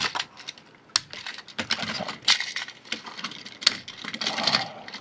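Plastic Plarail toy train wagons clicking and clattering as they are coupled together and set onto plastic track: a run of light clicks and sharper knocks.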